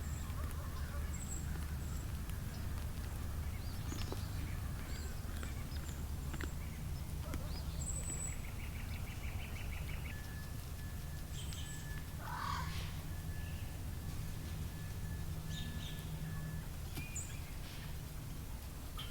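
Scattered faint bird-like calls and high chirps over a steady low hum, with a rapid buzzing trill about eight seconds in, a thin steady whistling tone from about ten to sixteen seconds, and a louder short call about twelve seconds in.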